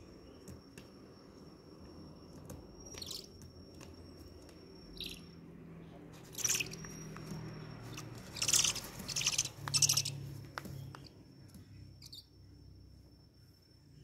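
Owl chicks hissing in several harsh bursts, loudest near the middle, the begging calls of hand-fed nestlings. A steady high cricket trill runs underneath.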